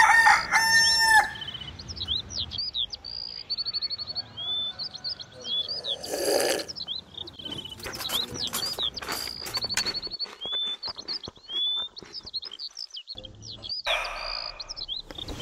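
A rooster crows at the start, followed by small songbirds chirping, whistling and trilling throughout. There is a brief rush of noise about six seconds in and a run of scattered clicks a few seconds later.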